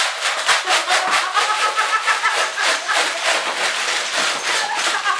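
Skittles and metal fidget spinners rattling in a plastic tray that is shaken hard, a fast run of sharp clicks, about five a second, then candy scattering onto a wooden table, with laughter over it.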